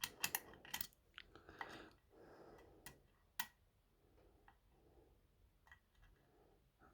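Faint small metallic clicks and ticks of a hook pick probing the pin stack inside a pin-tumbler padlock under tension, as the picker feels for the last unset pin. The clicks are sharpest and most frequent in the first few seconds, then thin out to a few soft ticks.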